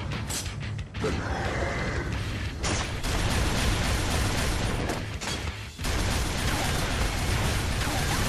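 Loud, dense animated-battle sound effects: mechanical clanking and grinding with crashes, over a pulsing low bass. The sound drops briefly about a second in and again near six seconds.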